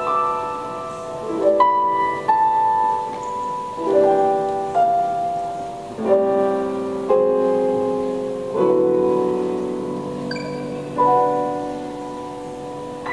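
Grand piano played slowly: chords struck every second or two and left to ring and die away. The playing grows quieter toward the end.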